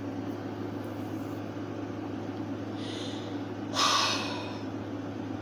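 A person, upset, breathes in sharply through the nose about four seconds in, with a fainter breath a second before it, over a steady low hum.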